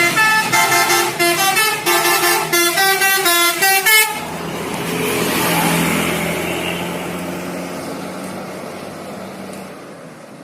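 Bus 'telolet' multi-tone horn playing a rapid run of changing notes for about four seconds, then cutting off. The bus's engine follows as it passes, swelling and then fading away.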